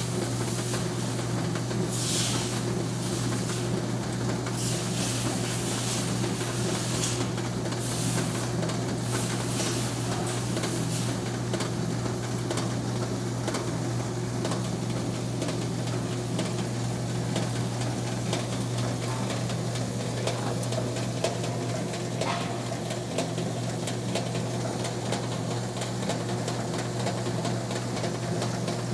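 Carter Day sizer tester running with a steady motor hum and the hiss of a grain sample tumbling in its rotating slotted drum. The hissing comes in repeated surges over roughly the first ten seconds, then settles into a steady run.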